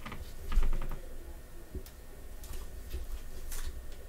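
Trading cards and a clear plastic card holder handled in gloved hands: scattered light clicks and ticks, with a dull bump about half a second in.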